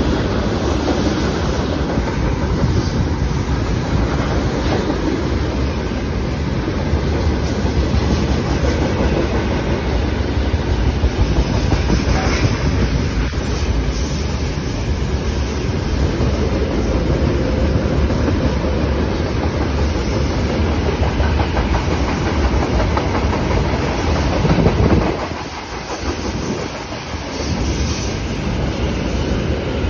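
Freight trains of loaded coal gondolas and covered wagons rolling past on neighbouring tracks, a loud, steady running noise that dips briefly about 25 seconds in.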